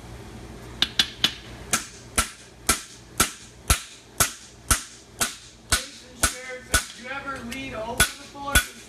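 Hand hammer striking a fuller held in hot horseshoe steel on the anvil, driving the crease for the nail holes: a steady run of sharp steel-on-steel blows, about two a second, each with a short metallic ring, starting about a second in.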